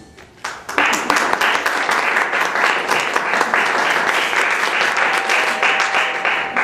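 Audience applauding at the end of a song, the clapping breaking out under a second in and continuing steadily.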